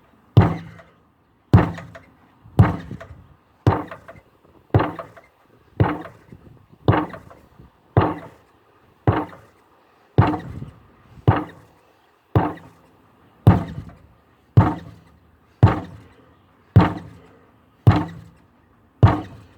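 An 8-pound sledgehammer repeatedly striking a tire at medium intensity: eighteen dull, heavy thuds at a steady pace of about one a second, each dying away quickly.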